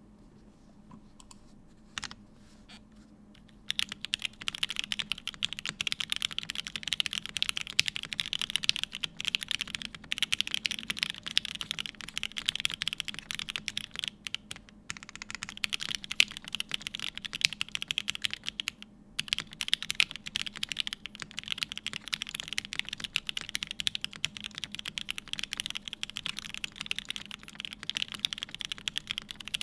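Steady, fast typing on a TGR 910ce mechanical keyboard with H1 switches, lubed with Krytox 205g0 and filmed, on a polycarbonate plate, with GMK keycaps. A single keystroke comes about two seconds in. The continuous typing starts about four seconds in and pauses briefly twice.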